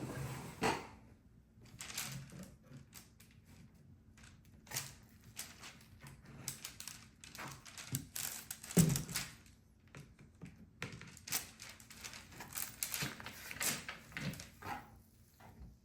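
Irregular clicks, taps and knocks of a 3D-printed plastic mold being handled and taken apart, with one louder knock about halfway through.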